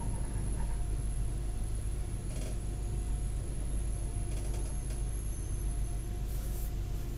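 Diesel railcar heard from inside, rolling slowly: a steady low engine rumble with a thin high whine and a faint steady mid tone, and a few light clicks.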